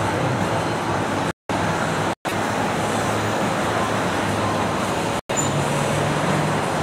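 Busy city street traffic: a steady wash of car engines and tyres with a low engine hum. The sound cuts out completely for a split second three times.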